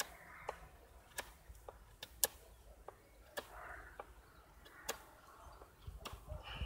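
Scandi-ground Cudeman 148M bushcraft knife carving a point on a small stick: irregular sharp clicks as the blade bites and catches in the wood, with faint scraping between them.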